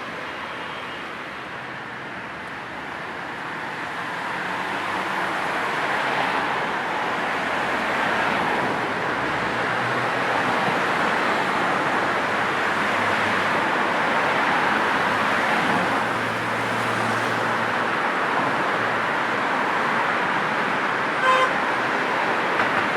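Steady road traffic, a wash of passing cars and tyre noise that builds over the first several seconds and then holds. Near the end a car horn gives one short toot.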